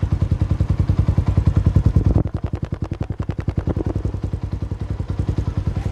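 Yamaha Sniper 150 MXi's single-cylinder four-stroke engine running through an aftermarket Exos X6 exhaust, a rapid, even exhaust beat. It is louder for about the first two seconds, then drops to a quieter idle.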